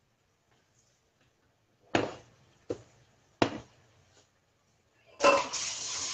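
A wooden spatula knocked three times against the rim of a ceramic cooking pot, sharp and loud, then about a second of rougher scraping clatter with a slight ring near the end.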